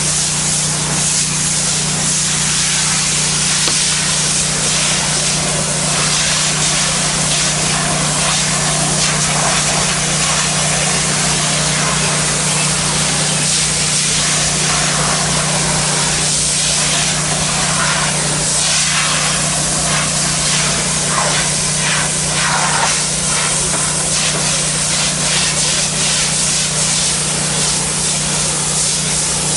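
Pressure washer spraying water across ceramic tile with a low-pressure tip: a steady hiss of spray over a steady low hum from the machine.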